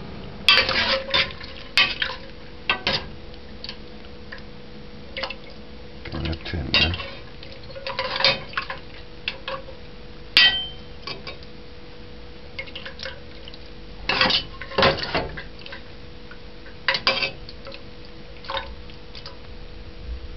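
A metal spoon scraping and clinking against the inside of a metal pressure cooker pot as the stewed meat is stirred and scooped, in irregular strokes. A steady faint hum runs underneath.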